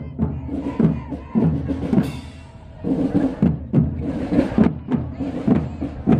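Marching drum band playing, the drums beating a steady rhythm of about two strokes a second, which briefly drops away a little after two seconds in before resuming.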